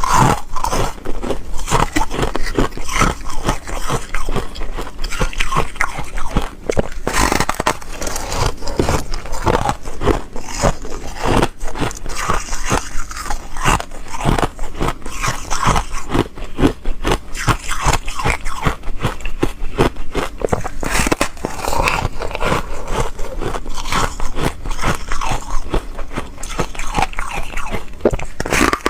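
Foam ice being bitten and chewed close to the microphone: a dense, continuous run of crisp crunching and crackling bites.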